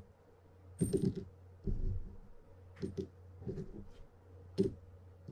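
Small metal parts of a fishing reel's rod clamp (a screw, washers and wing nuts) clinking as they are handled and set down, about five separate clicks, the sharpest about a second in and near the end.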